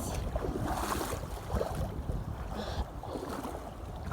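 Rushing river water, with wind rumbling on the phone's microphone.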